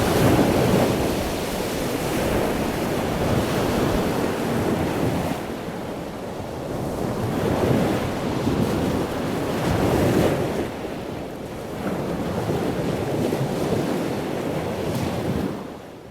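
Ocean surf: waves breaking and washing in, the roar swelling and easing every few seconds, with a windy rush over it. The sound fades away near the end.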